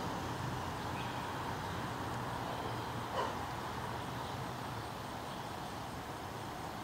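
Steady background hum and hiss, with a single short dog bark about three seconds in.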